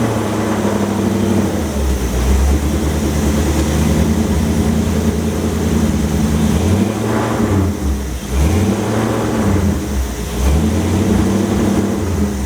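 Hot rod's engine running, its speed rising and falling several times.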